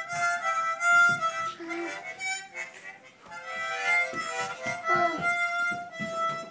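Toddlers blowing harmonicas: tuneless chords of several reedy notes at once, breaking and changing pitch every half second or so.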